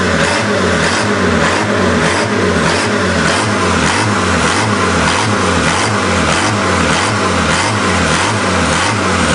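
Diesel engine of a home-built mini tractor puller running steadily, with a regular pulsing beat a little over two times a second.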